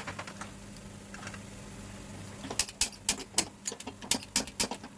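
Gun-style piezo gas lighter clicking at a gas stove burner, a few single clicks near the start, then quick repeated clicks, about four a second, from about halfway in as it is fired to light the burner.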